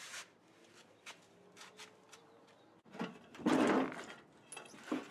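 Handling sounds around an old car body: scattered light clicks and knocks, with one louder rushing scrape about three and a half seconds in.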